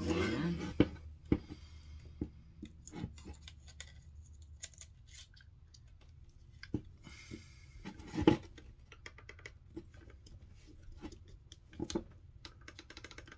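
Scattered small clicks and taps of hand tools and small parts being handled while an RC buggy's slipper clutch and bearing are fitted, with a few louder knocks, the loudest about eight seconds in.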